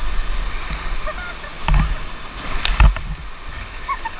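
Whitewater rapids rushing around a rubber raft, with wind and spray buffeting the microphone. There are two sharp splashes, one a little under two seconds in and one near the three-second mark.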